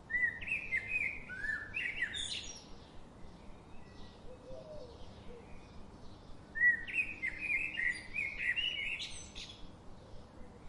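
Songbird song: two phrases of quick, chirped notes that bend in pitch, each about three seconds long, a few seconds apart.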